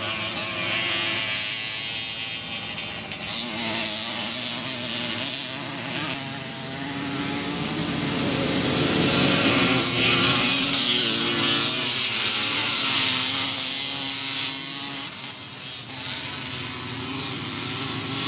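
A pack of 50 cc Czechoslovak two-stroke motorcycles racing past on a dirt track, several engines running at high revs at once with overlapping, wavering pitches. The sound swells to its loudest about halfway through as the bunch goes by, then eases off.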